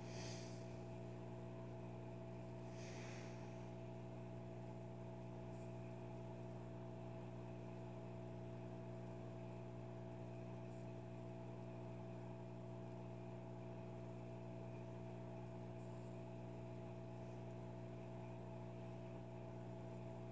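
Steady low electrical hum made of several fixed tones, with two faint brief rustles, one at the start and one about three seconds in.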